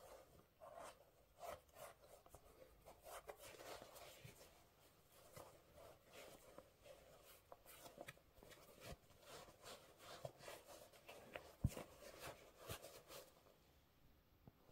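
Faint scratchy rubbing and rustling of sneakers being handled, with scattered light taps and a couple of sharper knocks in the second half.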